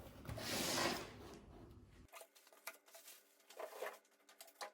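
Packaging being handled while a computer case is unboxed: a rustling scrape of cardboard or plastic about half a second in, then a few light clicks and taps.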